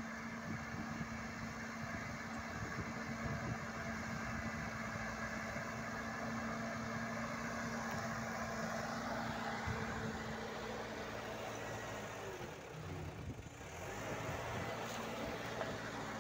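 Case 580L backhoe loader's diesel engine running steadily as the machine pushes dirt with its front loader bucket, with a brief drop in level about three quarters of the way through.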